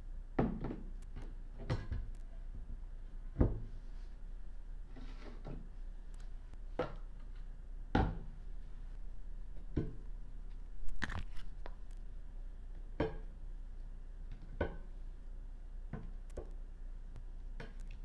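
Painting supplies set down one by one on a glass tabletop: a ceramic brush cup and paint tubes knocking and clicking against the glass, about a dozen separate taps at irregular intervals.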